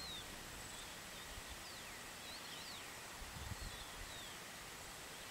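Faint outdoor ambience with scattered short bird chirps, several of them quick down-sliding whistles, over a steady faint high tone and a low irregular rumble.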